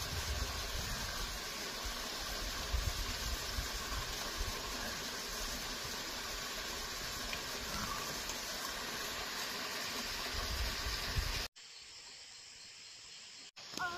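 Steady rushing noise, like flowing water, with a low rumble underneath; about eleven and a half seconds in it cuts off abruptly to a much quieter background.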